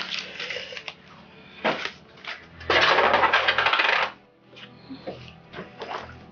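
Coins clinking and jingling as a hand rummages through them, with scattered single clinks and a loud stretch of jingling about three seconds in that lasts over a second.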